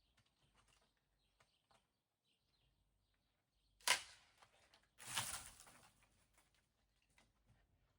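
A single sharp crack, then about a second later a short, rough crash that fades out within a second.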